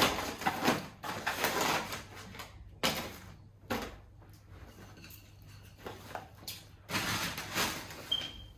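Paper and plastic packaging rustling and crinkling in irregular bursts as food packets and bags are lifted out of a cardboard shipping box and set down.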